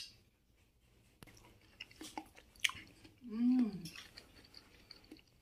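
A person chewing a bite of green melon whose flesh is still firm and crisp, giving small wet crunching clicks. A short hummed voice sound comes about three and a half seconds in.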